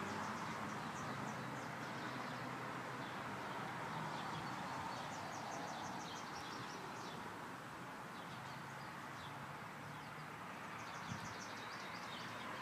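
Outdoor backyard ambience: a steady background hum with several bursts of rapid, high chirping, and a single short knock near the end.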